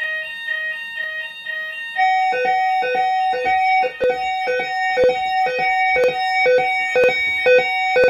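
Fire alarm sounders going off after a heat test of a combined CO and heat detector. First comes a steady high tone over a lower beeping. About two seconds in, louder sounders join with a two-tone pattern alternating about twice a second, and several sounders overlap out of step.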